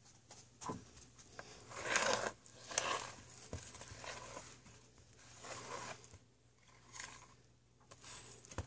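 Fork stirring and scraping thick cobbler batter in a plastic mixing bowl: irregular swishing, scraping strokes, some with small clicks of the fork against the bowl.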